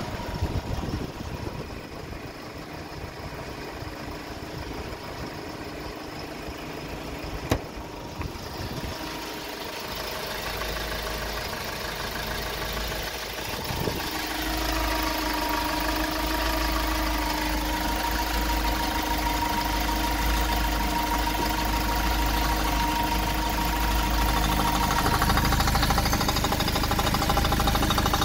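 A Kia Bongo III truck's diesel engine idling steadily. It grows louder and clearer after about halfway, as it is heard from the cab and the open engine bay. A single sharp click comes about a quarter of the way in.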